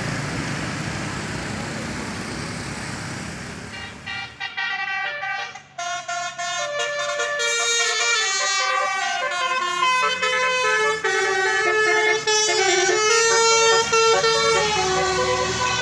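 Bus engine noise, then, about four seconds in, a Basuri multi-tone 'telolet' bus horn starts playing a fast melody of changing notes.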